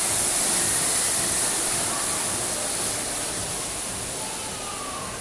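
Indoor fountain's tall water jet falling back into its pool, a steady splashing hiss that fades gradually as the jet drops.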